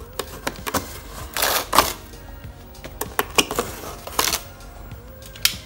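Cardboard box being slit open with a box cutter and its flaps pulled apart: scattered clicks and scraping, with longer rasping bursts about one and a half seconds in and again near four seconds.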